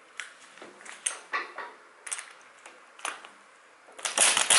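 A few clicks and knocks of metal tools being handled, then about four seconds in a pneumatic impact wrench starts its rapid hammering rattle, undoing the top cap of a motorcycle fork leg.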